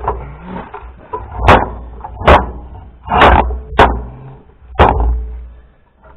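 Tools knocking and scraping on the tractor's hydraulic fittings: five sharp clanks, a second or less apart, over a low rumble.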